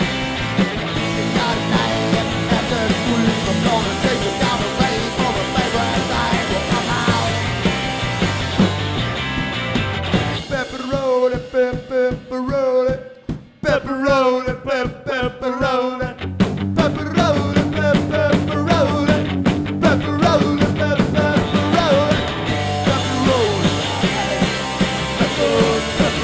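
Background rock-style band music. About ten seconds in, the low end and drums drop out for a sparser passage carried by a melody line, and the full band comes back in about six seconds later.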